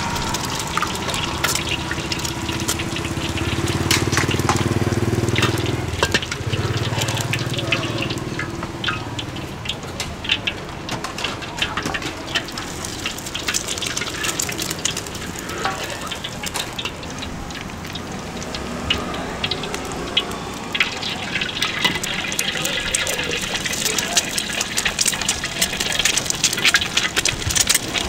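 Egg frying in hot oil in a wok, with a strong sizzle setting in about three-quarters of the way through. Throughout there are clinks and scrapes of a metal ladle and spatula against the wok, and there is a low rumble in the first few seconds.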